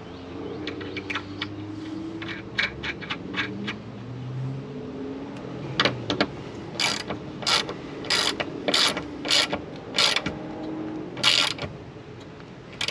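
Hand ratchet wrench tightening the windshield's retaining fasteners. Light clicking is followed by about eight evenly spaced ratcheting strokes, roughly two-thirds of a second apart, as the fasteners are drawn snug against the glass.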